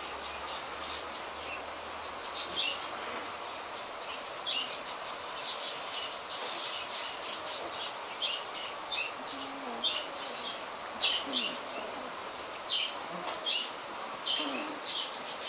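Young puppies squeaking: many short, high squeaks that each drop quickly in pitch, a few at first and coming thick and fast from about five seconds in, over a steady hiss.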